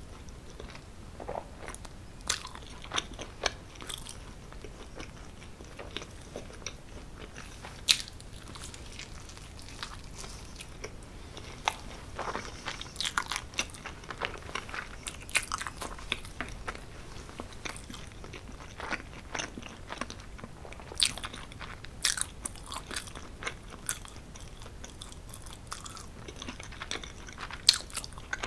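Close-miked eating sounds of someone biting and chewing cheese pizza, with irregular sharp crunches scattered over quieter chewing.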